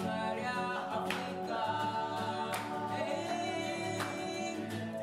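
Background music: a group of voices singing held chords, with a soft accent about every second and a half.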